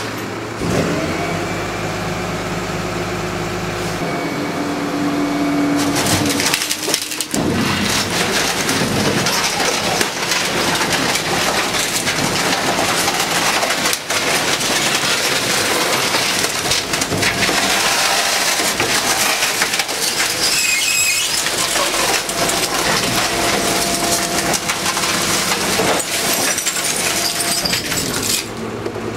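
Garbage truck's hydraulic rear compactor crushing a Hotpoint washing machine: the truck's engine and hydraulics run under load while the machine's casing cracks and crunches, with a brief high metal squeal about two-thirds of the way through.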